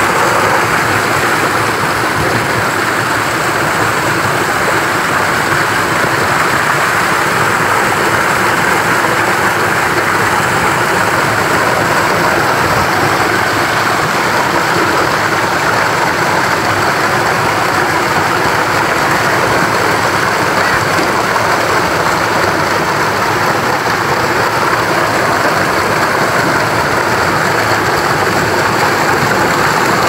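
Waterfall pouring close by: a steady, loud rush of falling water splashing onto rock.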